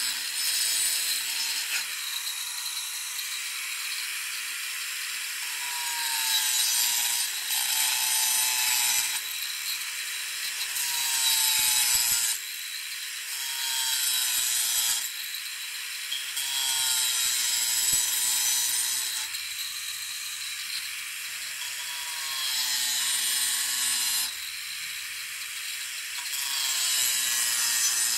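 Electric angle grinder with an abrasive cut-off disc cutting into PVC pipe. A high whine grows louder and harsher each time the disc bites into the plastic, with its pitch sagging under the load, and eases back between cuts every few seconds.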